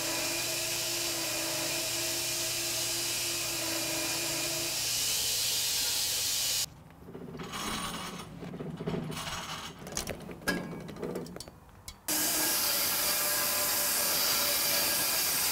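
Portable bandsaw mill running, its blade sawing through a large log with a steady machine noise. About seven seconds in it gives way to a quieter stretch of scattered knocks and scraping for some five seconds, then the sawing noise returns.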